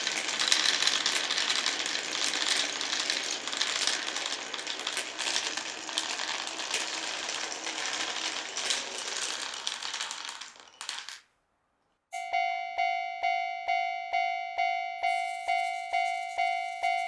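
Marbles rolling and clattering along wooden tracks, with many small clicks, stop abruptly about eleven seconds in. After a second of silence, a railway level-crossing bell starts ringing steadily, about two and a half dings a second.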